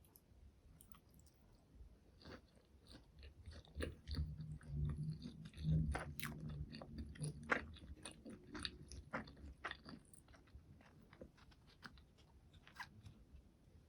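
Close-miked eating of McDonald's food: bites and wet chewing with many small crunchy crackles, densest and loudest from about 4 to 9 seconds in.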